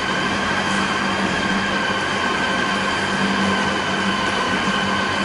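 Electric food processor motor running steadily, grinding beef with ice for meatball paste, with a constant hum and a high whine.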